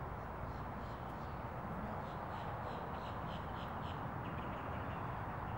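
A bird giving a quick run of short, high calls, several a second, starting about half a second in, over a steady low outdoor rumble.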